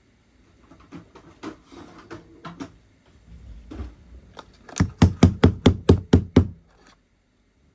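A run of about eight sharp knocks, roughly five a second, from a metal tool striking on the desk, after a few seconds of light handling clicks and rustles.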